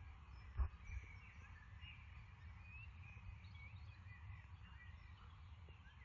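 Birds chirping faintly over a low wind rumble on the microphone, with one soft thump a little over half a second in.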